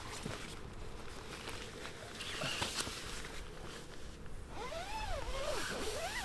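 Rustling and scraping of tent nylon and a padded gear bag as it is pushed through a dome tent's door, with a few squeaky tones sliding up and down near the end.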